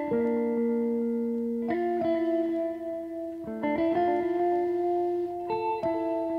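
Background music of plucked guitar chords, a new chord struck about every two seconds.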